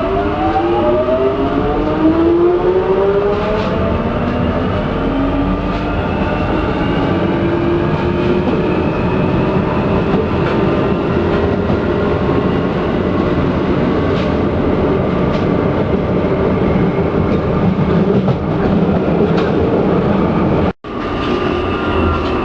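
London Underground 1996 stock train accelerating: its traction motor whine rises in pitch over the first few seconds, then settles into a steady run at speed with wheel and track noise and scattered clicks. The sound drops out for a split second near the end.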